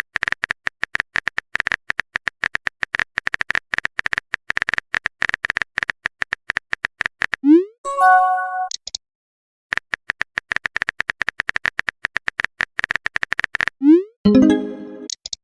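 Two long runs of rapid electronic typing blips, the letter-by-letter text sound effect of a chat-style story. Each run ends with a quick upward swoop and a short bright chime, like a message 'pop' notification.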